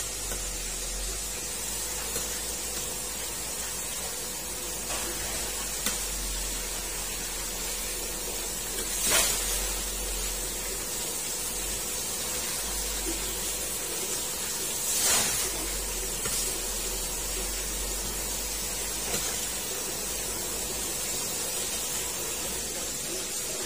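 Flour-coated crab pieces deep-frying in a wok of hot oil: a steady sizzling hiss that briefly grows louder twice, about 9 and 15 seconds in.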